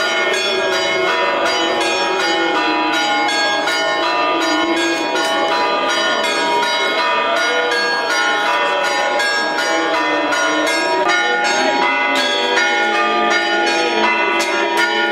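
Church bells ringing in a rapid, continuous peal, each strike overlapping the ringing of the last, over crowd voices. A couple of sharp cracks stand out near the end.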